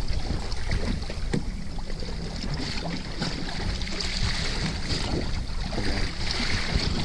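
Small boat's Yamaha 100 hp outboard running at low speed in a big ocean swell, with water sloshing and splashing around the stern and wind buffeting the microphone.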